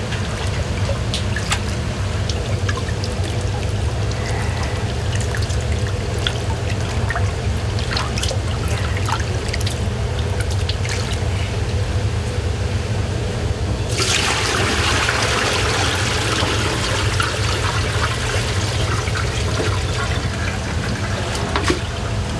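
Tap water running into a steel basin, with splashing as boiled udon noodles are rinsed and rubbed by hand. About 14 seconds in, the water becomes a much louder rushing hiss. A steady low hum sits underneath.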